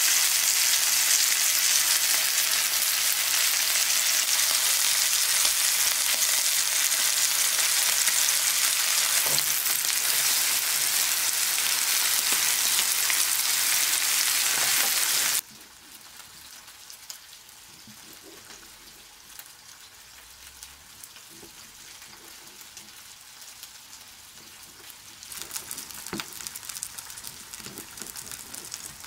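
Beef sirloin steak sizzling in oil on a hot grill pan, a loud steady sizzle that cuts off suddenly about halfway through. The rest is much quieter, with faint ticks, and near the end a knife slicing the cooked steak on a plastic cutting board makes light clicks.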